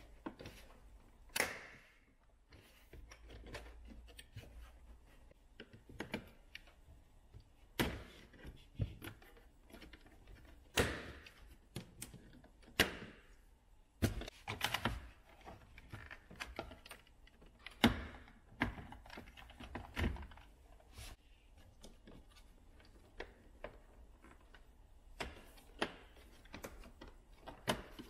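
Plastic interior trim of a VW Golf Mk7 being pried off and handled: irregular clicks, snaps and knocks as retaining clips release and panels are moved.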